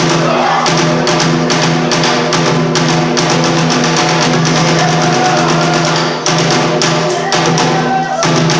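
Bitchu kagura accompaniment: rapid drum strikes over a steady held tone, with a higher melody line weaving above.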